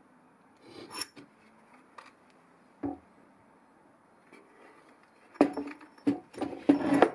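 Plywood jig fitted with steel threaded rods, nuts and tubes being handled and turned over on a workbench: a few faint clicks and knocks, then a run of louder wooden knocks and metal clatter from about five seconds in.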